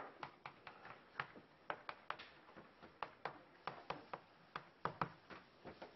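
Chalk tapping and scraping on a blackboard as Chinese characters are written: a faint run of short, sharp taps, irregularly spaced at about three a second.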